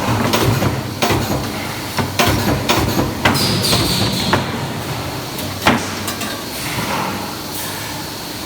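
Spot welding of steel display-rack parts in a factory: irregular sharp clanks and clicks of metal over a steady low hum.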